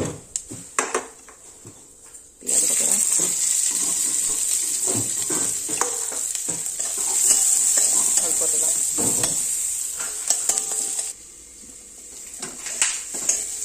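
Sliced onions hitting hot oil in a wok and sizzling loudly, starting suddenly about two and a half seconds in after a few utensil clinks, with a spatula knocking and scraping as they are stirred. The sizzle cuts off sharply near the end, leaving quieter clinks and stirring.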